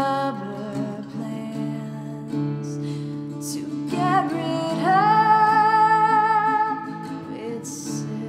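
Background music: a woman singing over an acoustic guitar, with a long held note with vibrato about five seconds in.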